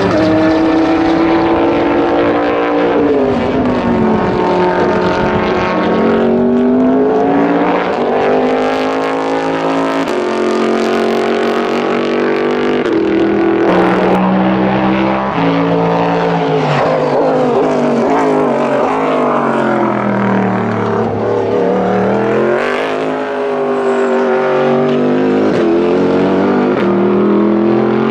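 Toyota Supra GT300 race car's 3.4-litre V8 running hard, its pitch climbing and falling again and again, with sudden drops at the gear changes.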